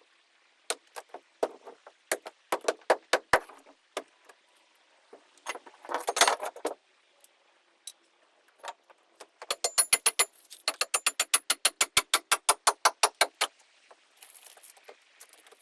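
Hand tools knocking and scraping at fiberglass and foam inside a boat hull during demolition: scattered sharp knocks, a short rasping scrape about six seconds in, then a fast run of strikes, about six or seven a second, from about ten to thirteen seconds in.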